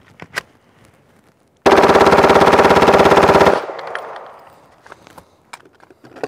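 Gen 3 Glock 17 9 mm pistol, converted to full auto with an auto sear, firing one long burst of about two seconds, a very fast unbroken stream of shots, in a sustained-fire meltdown test. The shots echo and fade away over about a second and a half after the burst stops, with a few small clicks of handling before and near the end.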